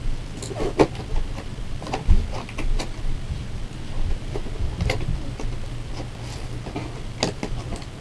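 A doll's cardboard box and its plastic packaging being handled, with a scatter of light clicks, taps and scrapes over a low steady hum.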